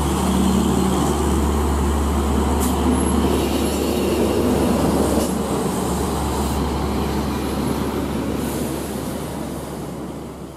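Diesel engine of a Hino FL heavy cargo truck running steadily with a low drone as it drives off, mixed with road noise, fading away near the end.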